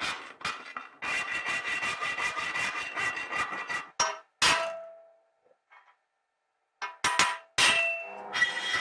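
Hand work on ringing metal: about four seconds of rapid rasping strokes with the piece ringing under them. Then two sharp metallic clangs, a short silence, and three more clangs, each with a ringing tail.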